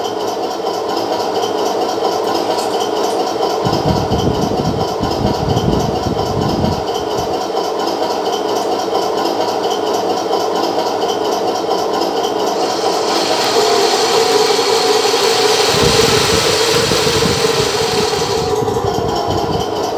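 A 1/16 RC Tiger I tank's on-board sound unit plays a steady simulated engine idle through its speaker. From about thirteen seconds to eighteen and a half seconds the tracks spin on the stand and a louder hiss and rattle from the running drive joins in. Low rumbling stretches come around four to seven seconds in and again near the end.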